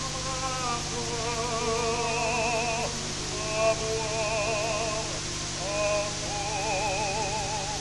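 Music of slow, held chords with a wide, even vibrato, the chord changing every two to three seconds, over a steady hiss and low hum.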